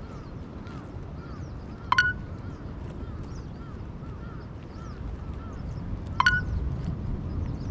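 Bird calls: two short, loud calls about four seconds apart over continual faint chirping, with a low steady rumble underneath.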